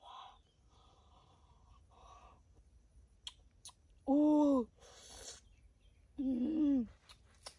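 A person eating freshly picked wild fruit: soft chewing and mouth noises, with two short hummed 'mmm' sounds that rise and fall in pitch, midway and again near the end, louder than the chewing.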